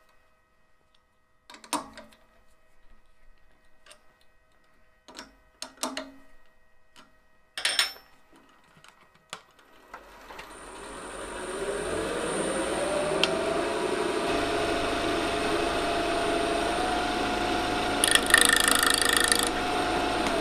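A few scattered clicks and knocks, then a wood lathe starts up about halfway through, its motor whine rising in pitch for several seconds before holding at a steady speed. Near the end a turning tool briefly touches the spinning off-centre ash piece, making a short hissing cut.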